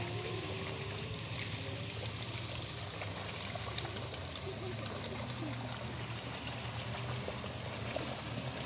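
Steady running, pouring water in a penguin pool, with a low steady hum underneath.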